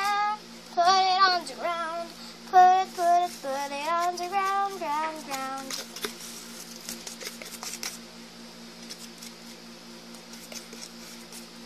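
A young female voice sings a short tune for about six seconds. After that come only faint light taps and rustles as the crumbly baking-soda-and-lotion fake snow is tipped out of a plastic container onto a table, over a steady low hum.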